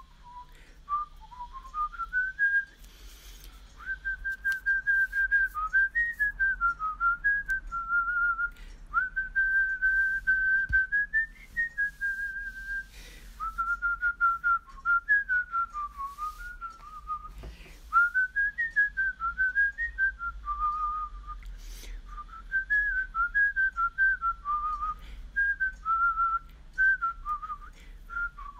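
A whistled tune: one clear melody of quick notes and longer held notes.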